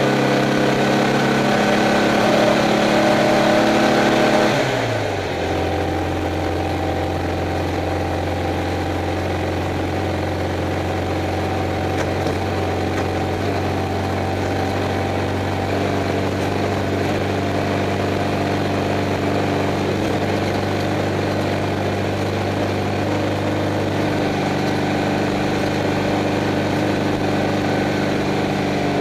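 Class 11 stock Volkswagen Beetle's air-cooled flat-four engine, heard from inside the car, running at steady higher revs, then dropping to idle about five seconds in and idling steadily for the rest.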